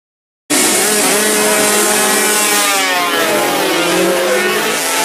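A pack of racing motorcycles accelerating hard, several engines at high revs at once, their pitches sliding up and down as they change gear. The sound cuts in abruptly about half a second in.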